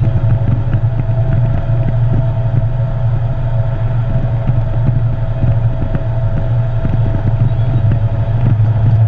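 Semi truck's diesel engine running, heard from inside the cab: a loud steady low drone with a thin steady whine above it and constant small rattles.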